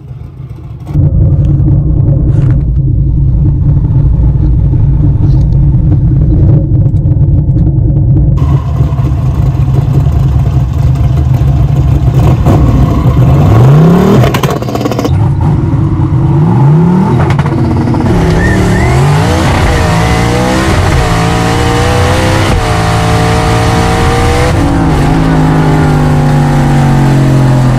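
Twin-turbo drag car's engine held at steady high revs at the line for several seconds, then launching and accelerating hard, the engine note climbing again and again as it pulls through the gear changes, before settling to a steadier, lower note near the end.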